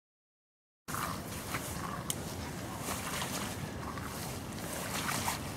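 Wind buffeting the microphone in a storm, a steady low rumbling noise with scattered sharp clicks, starting suddenly about a second in.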